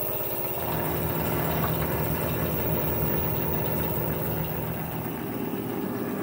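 LG washer dryer combo in its high-speed final spin: the drum and its rotor turn fast with a steady hum, wringing the last water out of the load. The hum steps up a little about half a second in.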